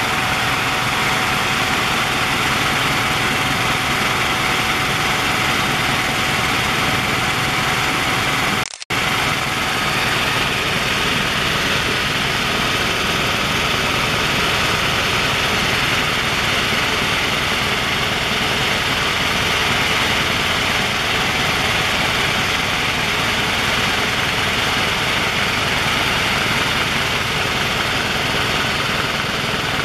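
Steady cabin noise of a Helijet helicopter in flight: the drone of engine and rotor, with a few thin steady tones riding over it. It cuts out for an instant about nine seconds in.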